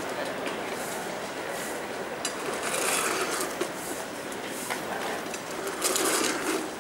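Double-deck passenger train rolling away along the track: a steady rail rumble with irregular sharper bursts of wheel-on-rail clatter and hiss.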